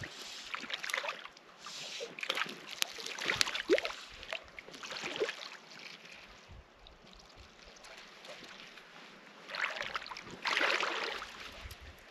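Small hooked trout thrashing at the surface of shallow water as it is played in on a fly line, with irregular splashes and sloshes throughout.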